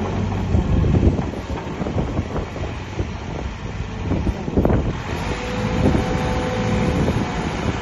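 JCB backhoe loader's diesel engine running with a steady rumble, over many short knocks and clanks, one louder knock just before five seconds in. A steady whine joins about five seconds in.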